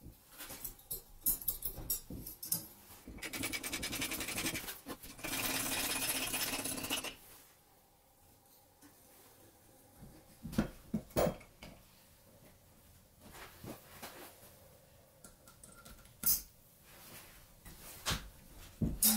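Metal clicks and knocks from handling a homemade hydraulic bottle-jack tool and its steel plates. A dense, fast rattle lasts a few seconds in the first half, and scattered single knocks follow.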